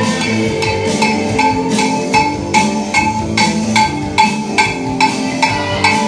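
Cowbell struck with a stick in a steady beat, about two and a half strikes a second, each a short metallic clank, over loud music.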